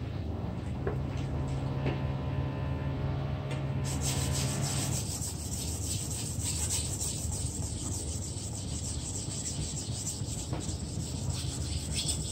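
A long steel fish-processing knife blade being stroked back and forth across a whetstone, a gritty scraping that sets in about four seconds in and continues in rapid, repeated strokes. Before that, a low steady hum.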